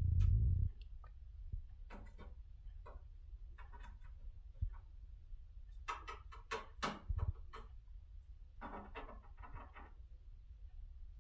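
Eurasian jay tapping and pecking its beak on the hard plastic edge of a monitor: small clusters of quick ticks a few seconds apart, busiest a little past halfway and again near the end. A short low thud opens it.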